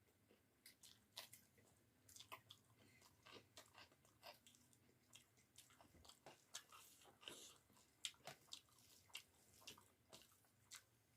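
Close-miked mouth sounds of a person eating a meal of rice and curry: chewing and biting, with many sharp, irregular clicks and smacks.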